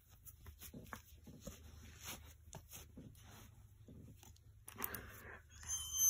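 Doberman licking and mouthing close to the microphone: a string of faint wet clicks and smacks, louder near the end.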